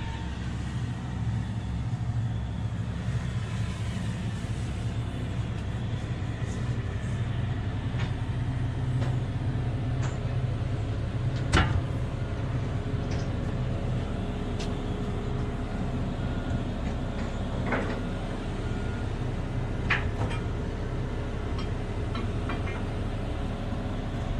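Liebherr R 9350 mining excavator running, a steady low machine hum heard from its upper deck. A few sharp knocks stand out, the loudest about halfway through.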